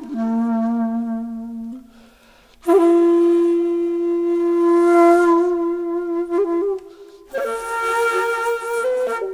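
Background music: a solo flute playing slow, long held notes with breathy attacks, in three phrases separated by short pauses.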